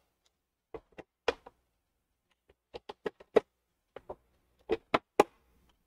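A string of sharp plastic clicks and knocks, about a dozen in irregular clusters, as the embroidery hoop is fitted back onto the embroidery machine and the machine is handled.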